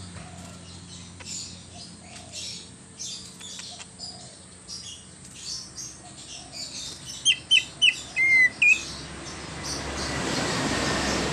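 A cucak ijo (green leafbird) singing a varied song of quick high chirps and whistles. About seven seconds in comes a run of loud, sharp whistled notes, one of them falling in pitch. Near the end a rising hiss comes in under the song.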